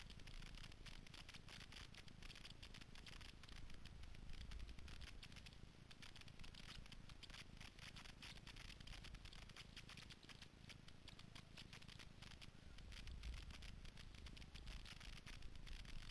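Snowboard sliding and scraping over packed, tracked snow, a faint continuous rough scratching with a low wind rumble underneath.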